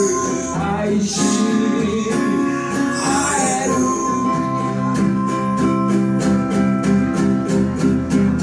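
Live acoustic band music: two acoustic guitars strumming with a singer. Near the end, the guitars settle into a steady strummed rhythm under a long held melody note.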